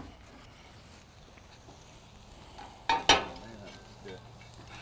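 Steak sizzling faintly on hot grill grates, with two sharp knocks close together about three seconds in.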